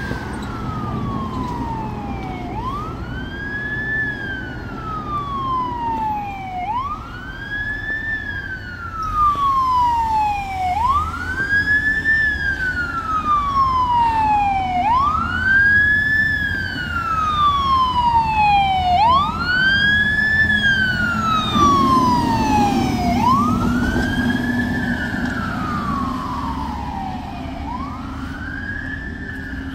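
Fire truck siren on a slow wail, rising to a peak and gliding back down about every four seconds, seven times over. A second, fainter siren overlaps in the middle, and a deep truck rumble swells about two-thirds of the way through.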